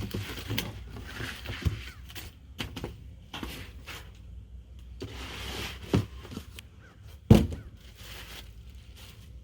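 Cardboard packaging rustling and scraping as parts are pulled out of a box, with a few knocks; the loudest is a sharp thunk about seven seconds in.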